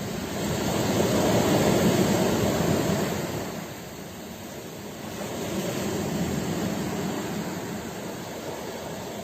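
Ocean waves breaking and washing in, a rushing noise that swells twice, loudest about a second in and again just past the middle.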